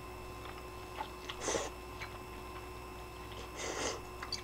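A person eating ramen noodles: two short, breathy slurps, about a second and a half in and again near the end, with small clicks of chewing between them.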